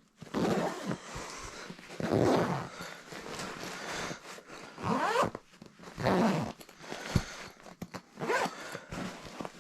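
A zipper on a comforter's bedding bag being pulled in several short strokes, with handling of the bag.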